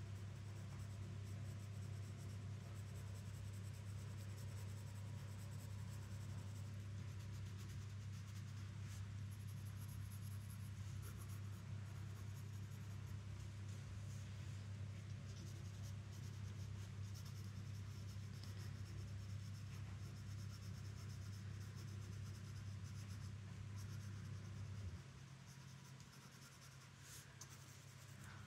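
Wooden graphite pencil scratching and shading on paper in short, soft strokes. Under it runs a steady low hum, which drops away near the end.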